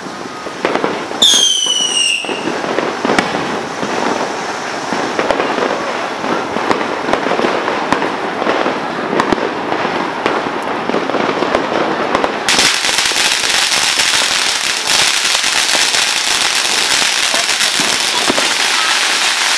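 Fireworks crackling and popping without a break, with a falling whistle from a whistling firework about a second in. About twelve seconds in, a loud steady hiss starts suddenly and stays under the crackling.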